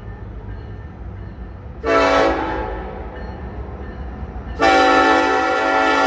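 Locomotive air horn sounding a short blast about two seconds in, then a long blast that starts near the end, over a steady low rumble of the train.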